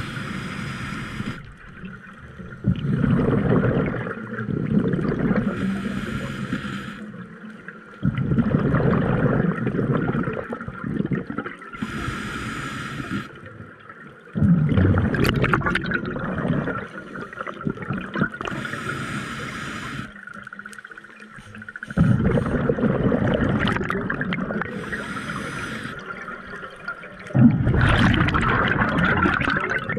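Scuba diver breathing through a regulator underwater. About every six seconds a short hissing inhale through the demand valve is followed by a few seconds of gurgling exhaled bubbles, five breaths in all.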